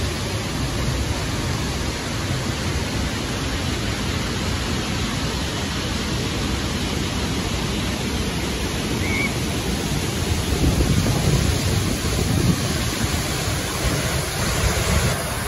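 Steady rushing roar of a large waterfall, Burney Falls, pouring down a cliff into its pool; the low rumble grows louder about ten seconds in.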